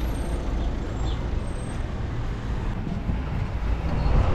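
Steady road-vehicle noise with a strong low rumble, like traffic or a car driving.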